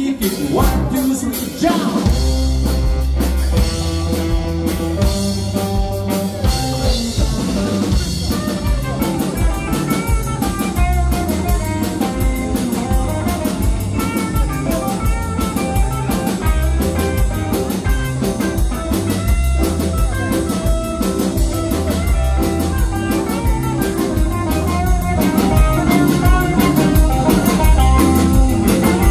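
Live band playing a rock number: electric guitars, electric bass and drum kit with a steady beat, and a man singing.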